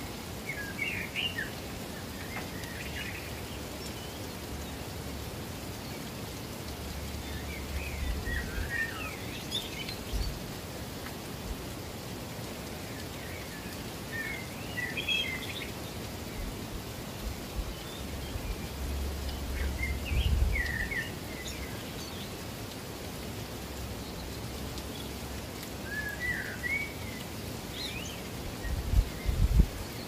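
Steady rushing water, with a songbird singing short, quick phrases every five or six seconds. A few low rumbles come through, the strongest near the end.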